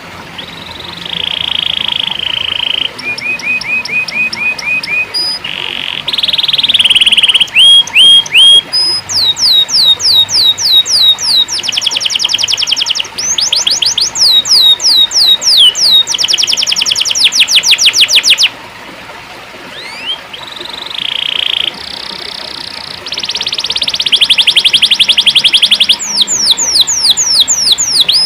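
Domestic canary singing a long song of fast trills and rolls: runs of rapid repeated notes and quick downward-sweeping whistles, in phrases broken by short pauses.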